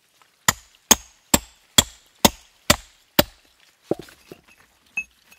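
Hammer driving a steel chisel into a rock nodule to split it open. Seven sharp, ringing blows come about two a second, followed by a few lighter taps.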